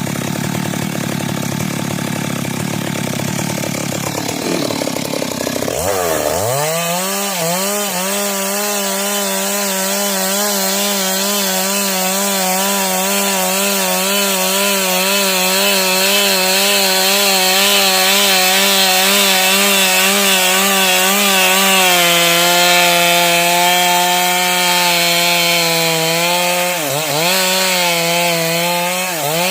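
Two-stroke chainsaw ripping a log lengthwise: the engine runs lower and rough at first, then revs up sharply about six seconds in and holds full throttle in the cut. Near the end its pitch drops a step and sags briefly twice as the chain bogs under load.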